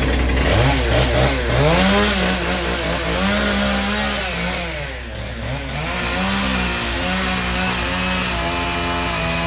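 Chainsaw engine revving up and down several times, holding at high speed for a second or so between drops, over a steady low hum.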